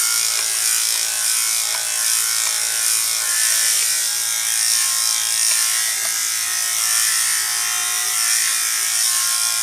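Electric dog-grooming clipper, fitted with a comb guard, running steadily as it clips a dog's coat: an even motor buzz with a low hum.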